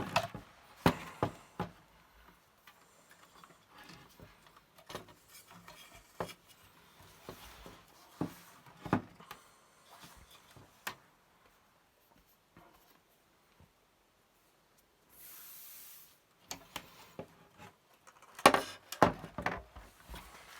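Clicks, knocks and rubbing of dot-matrix printer parts being handled during disassembly, with a short hiss about fifteen seconds in and a cluster of louder knocks near the end.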